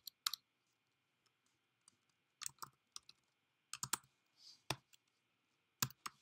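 Computer keyboard typing: single keystrokes and short runs of a few keys, with pauses between them, as a word is typed out letter by letter.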